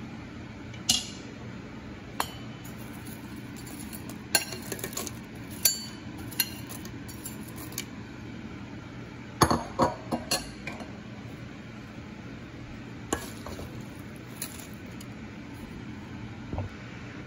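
Scattered clinks and knocks of a utensil and food against a metal bowl as fried chicken pieces are added to noodles, with a quick cluster of several knocks about halfway through, over a steady low hum.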